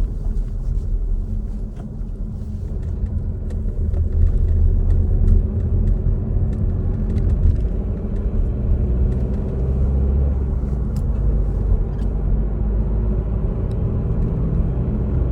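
Mazda CX-3 driving, a steady low rumble of road and engine noise with a faint rising engine tone about four to ten seconds in. It is a check of the car's booming noise after a repair.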